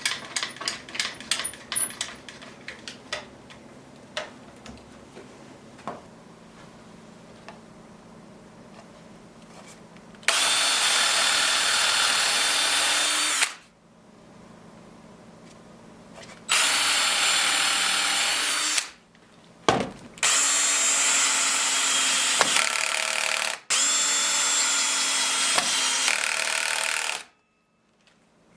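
A handheld power tool on wood. It starts with a quick series of sharp knocks, then runs in four steady bursts of about three seconds each, starting and stopping abruptly.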